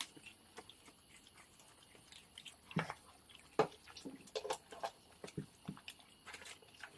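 Someone eating: faint chewing and mouth smacks, with scattered short clicks, two of them louder about three seconds in.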